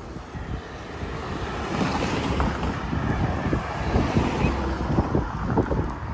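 Wind buffeting the microphone of a camera riding along on a moving bicycle. It makes an uneven low rumble in gusts, building from about a second in and easing near the end.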